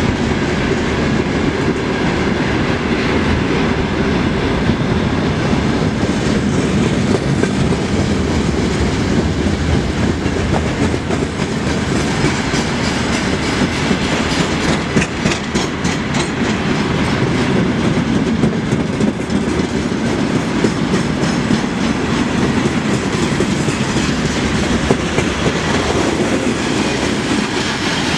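Freight train wagons (hoppers and flat cars loaded with steel coils) rolling past close by: a steady rumble and clatter of steel wheels on rail, with a run of sharper clicks from wheels crossing rail joints about halfway through.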